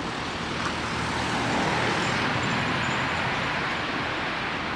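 Road traffic on a town street: a steady rush of car tyres and engines, swelling a little in the middle as a vehicle goes by.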